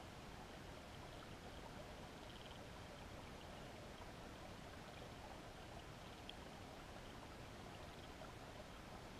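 Faint, steady underwater ambience picked up through a GoPro's waterproof housing: a low wash of flowing river water with a few small ticks scattered through it.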